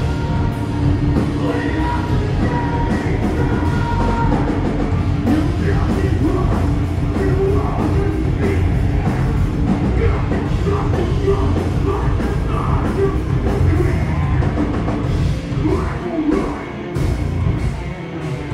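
Metalcore band playing live: heavy guitars and drum kit with a voice singing and yelling over them. The sound drops briefly a couple of times near the end.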